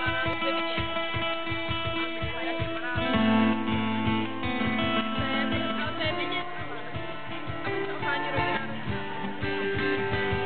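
Live instrumental intro on acoustic and electric guitars over a steady cajon beat; about three seconds in the chord changes and lower notes come in, filling out the sound.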